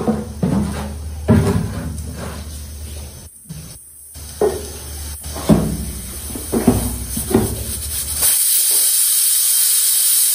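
Kitchen clatter: a series of knocks and clanks of pots and utensils, each ringing briefly, over a low steady hum. About eight seconds in, a loud steady hiss starts and then cuts off abruptly.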